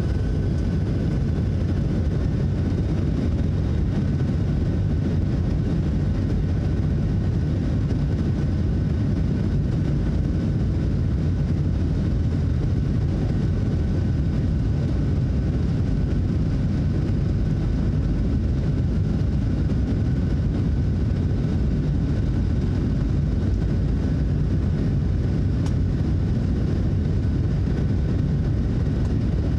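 Steady jet engine and airflow noise from a Boeing 737-700's CFM56-7B turbofans, heard inside the passenger cabin: a constant low rumble with a faint steady whine above it.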